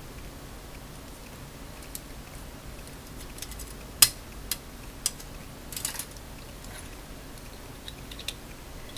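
Plastic model-kit parts clicking as they are handled on the sprue frame, with one sharp snap about four seconds in as a piece comes off, then a few lighter clicks.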